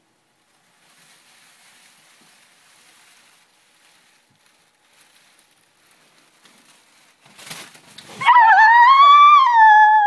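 A brief rustle about seven and a half seconds in, then a loud, long, high-pitched scream that starts about a second later and wavers up and down in pitch.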